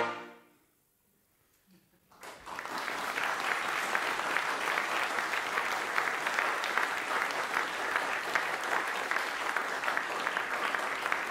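A brass quartet of two trumpets and two trombones cuts off on a short final chord, then after about two seconds of silence an audience breaks into steady applause.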